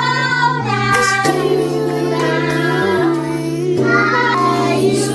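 Music: a song with a sung melody over steady, sustained instrumental chords.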